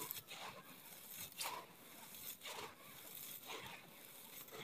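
Hands scooping, raking and crumbling gritty red dirt with small pebbles in it. The soil gives a dry grainy crunch and pour about once a second.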